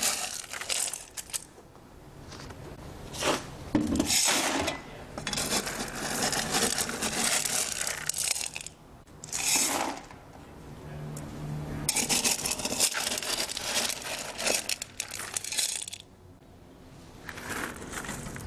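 Gravel coarse aggregate scooped out of a plastic bucket with a metal hand scoop: stones scraping and clattering against the scoop and bucket in repeated bouts of a second to a few seconds, with short pauses between.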